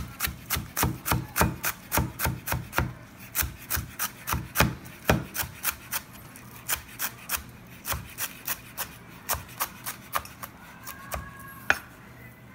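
Chef's knife chopping green onions on a plastic cutting board: quick, even knocks about four a second, thinning out and slowing in the second half, with one louder knock near the end.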